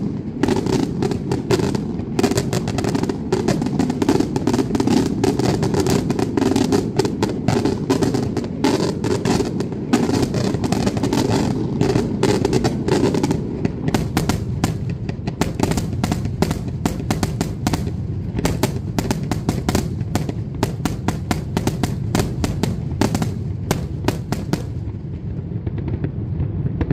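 Daylight fireworks firing in a rapid, continuous barrage of bangs, many reports a second, over a steady low rumble. The barrage stops about 24 seconds in, and the rumble fades after it.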